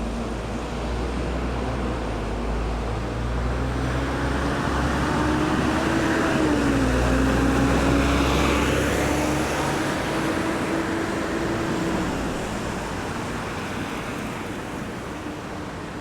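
Night road traffic at a roundabout: a vehicle passes close by with a low engine drone and tyre noise. It swells to its loudest about halfway through, its engine note dropping as it goes past, then fades into the steady traffic hum.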